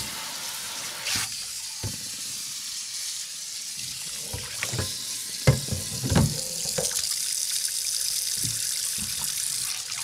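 Water running steadily from a tap into a sink, with several short knocks, the loudest about halfway through.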